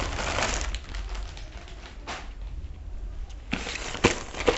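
Plastic parcel wrapping rustling and crinkling as it is handled, with a burst at the start, a short one about two seconds in, and more rustling near the end that includes two sharp clicks.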